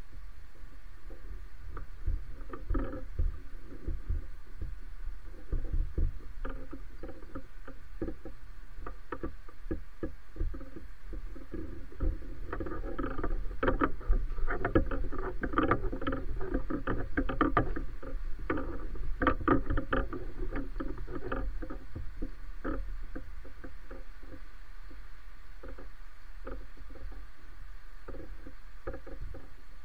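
2007 JLG E450AJ electric articulating boom lift working as its boom moves and its turret turns: a steady low hum with irregular clicks and knocks, busiest in the middle stretch.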